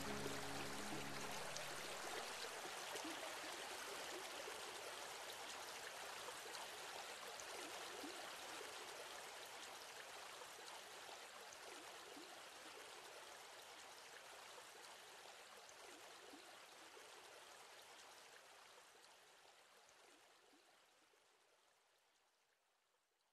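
Steady rain, an even hiss scattered with small drop ticks, fading out slowly to silence. The last notes of background music die away about a second in.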